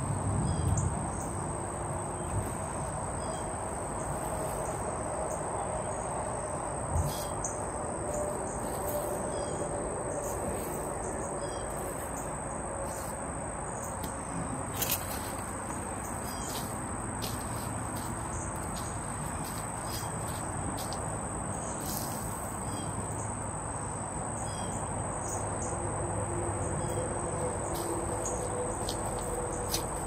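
Insects chirping steadily in a continuous high-pitched drone, with scattered short chirps, and a few soft knocks about seven and fifteen seconds in.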